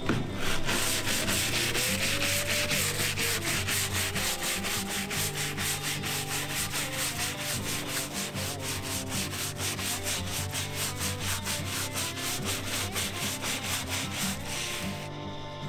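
Stiff-bristled hand scrub brush scrubbing the wet charred-wood (yakisugi) cap of a fence, in quick, even back-and-forth strokes about five a second. It stops about a second before the end.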